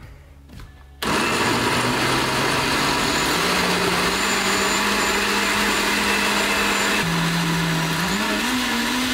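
Countertop blender switched on about a second in, blending a smoothie with a loud, steady motor whir. Its pitch climbs as it runs, dips briefly about seven seconds in, rises again, and then cuts off abruptly.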